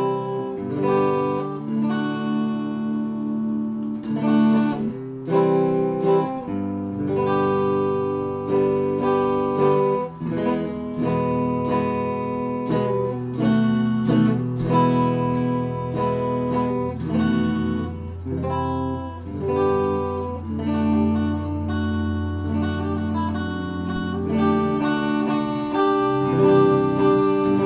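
Squier Starcaster semi-hollow-body electric guitar played through an amplifier. A continuous run of chords is picked and strummed, each ringing out for a second or two before the next.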